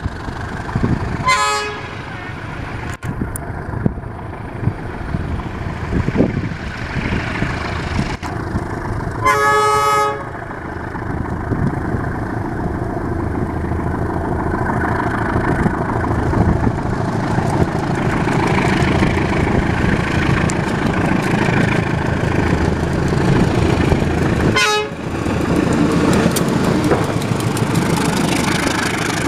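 CC 201 diesel-electric locomotive running with a steady engine rumble that grows louder as it passes close near the end. Its horn sounds three times as the semboyan 35 signal: a short toot about a second and a half in, a blast of about a second near ten seconds, and another short toot about 25 seconds in.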